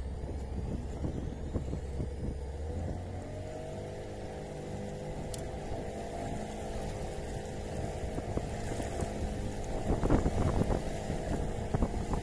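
Small fishing boat's outboard motor running steadily, its pitch rising about two seconds in and then holding. Near the end, rushing water and wind grow louder, with irregular knocks.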